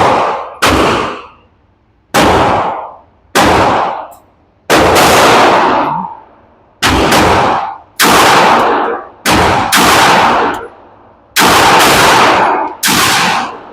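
Glock 19 9 mm pistol without a RamJet firing about a dozen shots at an uneven pace, some as quick pairs about a third of a second apart and others up to two seconds apart, each shot ringing out for about a second after.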